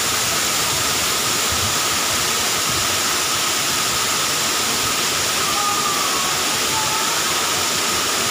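Waterfall pouring down rock into a pool: a steady rush of falling water.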